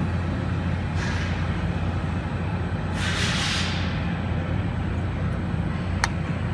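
Steady low mechanical hum, with a brief scratchy hiss about three seconds in and a sharp click near the end.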